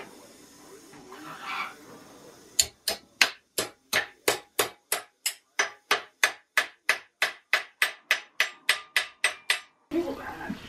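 Hammer striking a torch-heated iron bar clamped in a vise, bending it to shape for a trigger guard. The blows come in a fast, even run of about four a second, each one ringing briefly. They begin a couple of seconds in and stop abruptly about a second before the end.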